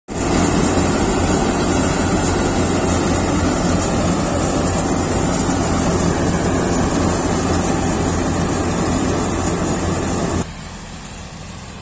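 Kartar 4000 combine harvester running at close range while cutting paddy: a steady low engine hum under a dense rushing mechanical noise. About ten and a half seconds in, the sound drops abruptly to a much lower level.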